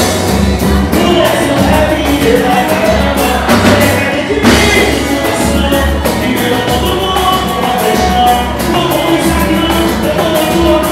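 Pagode band playing live, with bass guitar, percussion and sung vocals over a steady beat.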